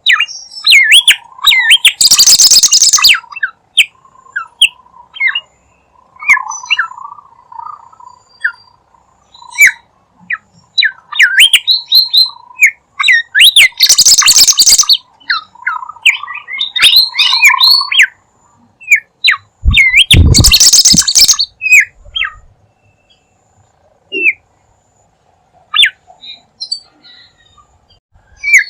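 Bird-lure recording of the bird sold as 'bimoli': a busy run of quick chirps and short whistled pitch glides. Harsh, loud screeches break in about two seconds in, around fourteen seconds and around twenty seconds.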